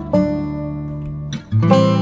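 Background music: an acoustic guitar plucking and strumming chords, with new chords struck every half second or so.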